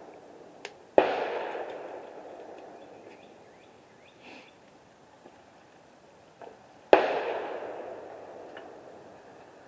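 Two rifle shots about six seconds apart, each a sharp crack followed by a long echo that fades over a few seconds.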